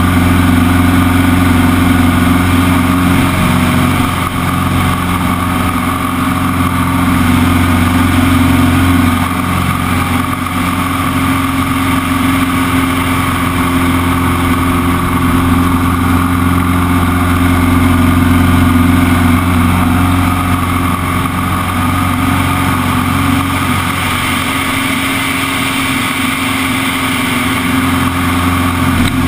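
Extra 200 aerobatic plane's four-cylinder Lycoming engine and propeller droning steadily, heard from the cockpit, with the loudness dipping slightly a few times as the plane manoeuvres.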